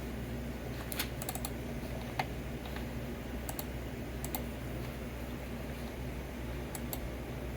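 Scattered clicks of computer keyboard keys, some in quick little runs, over a steady low hum.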